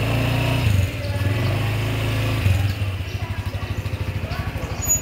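Small motorcycle or scooter engine running close by. It is loud for the first two and a half seconds, then settles to a softer, even idle putter.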